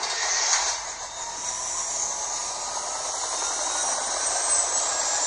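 Soundtrack of a video playing through a Samsung Galaxy S3's loudspeaker: a steady hiss-like noise, with a faint high tone sliding down near the end.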